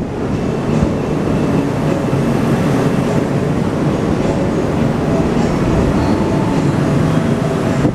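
Passenger coaches of the Argo Anggrek express train rolling in alongside a station platform, giving a steady, loud rumble of wheels on rails.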